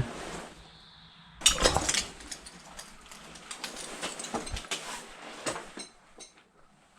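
Broken glass and debris crunching and clinking, with a loud cluster about a second and a half in and scattered lighter clinks after that.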